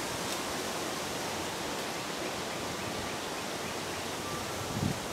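Steady outdoor background noise, an even hiss, with a short low thump near the end.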